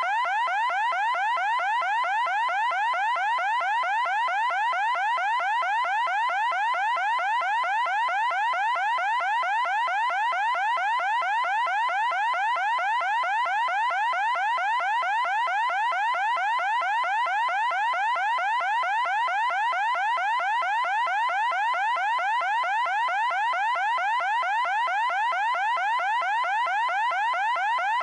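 Electronic timer alarm: a loud, rapid string of short rising chirps repeating without a break, signalling that the one-minute countdown has run out.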